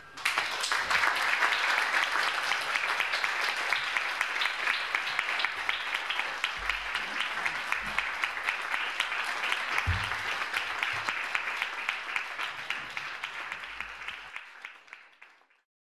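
Audience applauding in dense, steady clapping that starts right as the music stops and dies away near the end.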